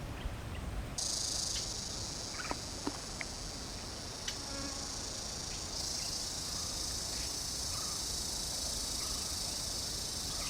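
Insects shrilling in a steady, high-pitched chorus that starts abruptly about a second in and grows louder about halfway through, over a low rumble and a few faint clicks.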